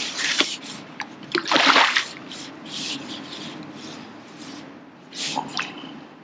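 Water splashing as a hooked fish is drawn over a landing net and the net is lifted out of the water. There are several splashes, the loudest about a second and a half in and another near the end.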